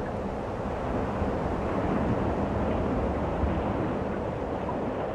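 Steady low rumbling noise with no distinct events.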